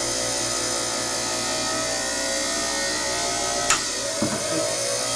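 Edison cylinder shaving machine running, its cutter shaving a cast recording-cylinder blank spinning on the mandrel: a steady whir. About three and a half seconds in there is one sharp click, followed by a few small knocks, as the shaving arm is lifted off the cylinder.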